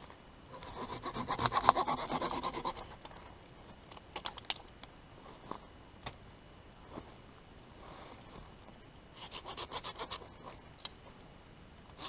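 Hand saw cutting dry wood on a fallen tree: a run of quick back-and-forth strokes lasting about two seconds, a few sharp clicks, then another short run of strokes near the end.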